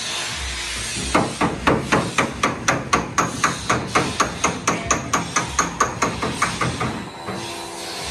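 Hammer tapping the steel sheet metal of a Suzuki Samurai SJ413's body in quick, even blows, about four to five a second. The hammering starts about a second in and stops about seven seconds in.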